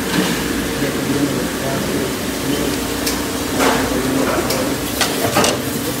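Restaurant kitchen dish-area noise: a steady hiss over a low machine hum, with a few sharp clatters of dishes, about three and a half and five seconds in.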